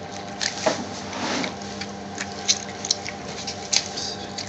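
A fresh lemon squeezed by hand over a bowl of oil and spices, its juice dripping and pattering into the liquid, with small wet squishes and irregular soft clicks.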